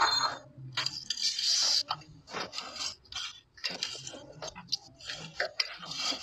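Irregular scraping and clinking of metal being worked by hand: a run of short strokes, with one longer scrape about a second in.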